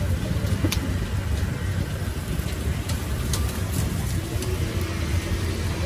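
Street traffic: a steady low engine rumble, with a few light clicks and taps scattered through it.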